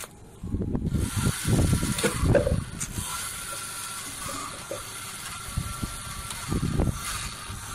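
A toy RC car's small electric motor and plastic gearbox start about half a second in and run with a steady high whine while the car's front end burns. Low rumbling gusts come through in the first two seconds and again near the end.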